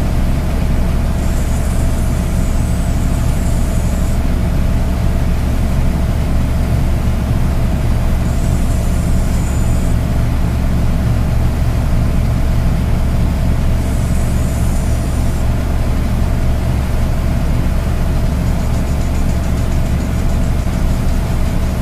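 Small portable generator, a Sportsman 1000-watt, running steadily with a constant low engine hum. Three times a short, high hissing sound lasting a second or few rides over it.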